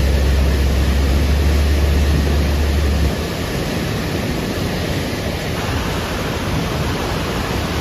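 Steady rushing noise of water, with a deep rumble under it that cuts off suddenly about three seconds in.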